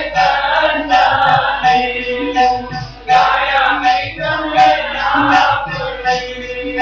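Sikh kirtan: men and women singing a hymn together, accompanied by harmoniums and tabla, with the tabla strokes keeping a steady rhythm under the voices.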